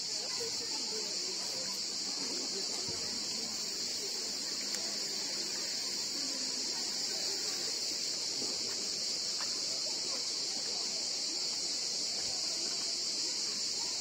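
A steady, high chorus of cicadas chirring without a break, with faint voices of people in the background.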